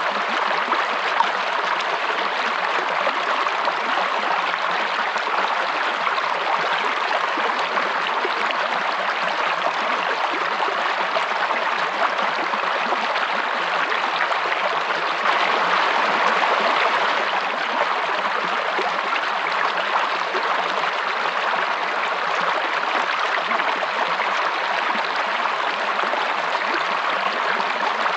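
Flowing water of a stream, a steady, even rush, swelling slightly about halfway through.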